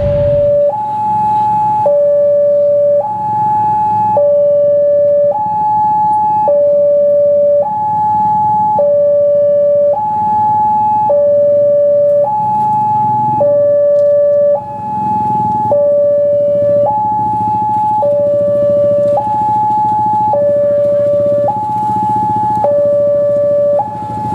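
Electronic warning alarm of a Wantech railway level-crossing signal, sounding with the barrier down for an approaching train. It plays a steady two-tone pattern: a lower tone and a higher tone alternate, each held about a second.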